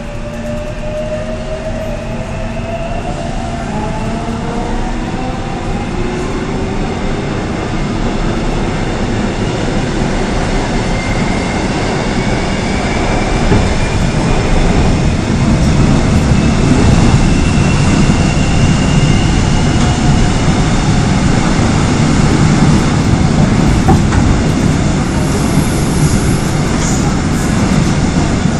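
Korail Line 3 subway train heard from inside the car while running through the tunnel: the rumble of wheels on the rails grows steadily louder as it picks up speed, with the electric traction motors' whine rising in pitch through the first half, and a brief high squeal near the end.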